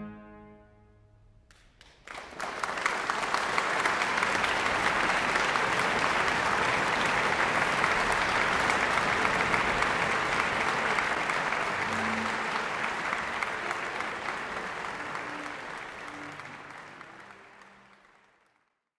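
An orchestra's closing chord dies away in the first moment, and after a short hush an audience breaks into applause about two seconds in. The applause holds steady, then fades out near the end.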